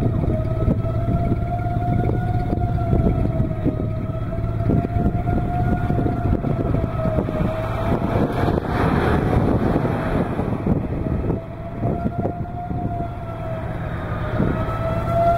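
Outdoor tornado warning siren wailing, its pitch slowly rising and falling, over steady low rumbling noise. About eight seconds in the siren fades under a swelling rush of noise, then returns.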